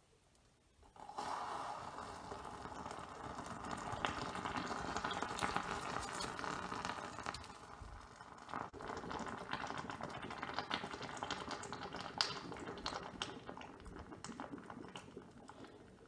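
Molten copper poured from a crucible into a green-sand mould, sizzling with many small crackles as the hot metal meets the damp sand. The sizzle starts about a second in and eases off near the end.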